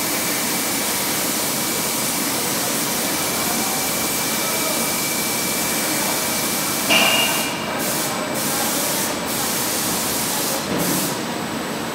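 CNC lathe turning a metal flange: a steady loud hiss with a thin high whine. About seven seconds in there is a sudden louder moment and the whine steps up in pitch. After that the hiss drops away briefly three or four times.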